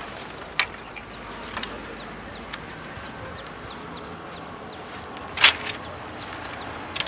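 Dry sticks cracking and snapping as branches are handled and broken, a few sharp cracks with the loudest about five and a half seconds in. Birds chirp in the background with short, high, falling notes.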